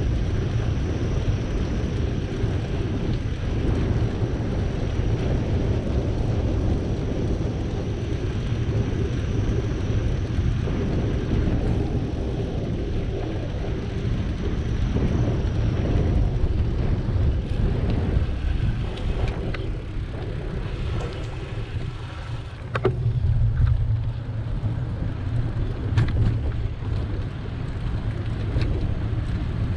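Wind rushing over the microphone of a camera on a moving bicycle, a steady low rumble mixed with tyre and riding noise. Two sharp knocks come in the last third, from the bike jolting over bumps.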